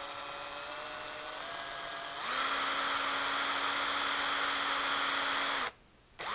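Cordless drill spinning a wire wheel brush against a Tecumseh cylinder head, scrubbing carbon off the combustion chamber. The motor whines steadily, rising slightly in pitch. About two seconds in it gets louder, with the rasp of the brush on the metal. It stops abruptly shortly before the end and starts again straight away.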